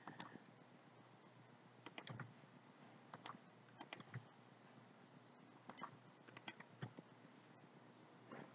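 Faint, scattered clicks of a computer mouse and keyboard, coming in small clusters of two or three every second or so.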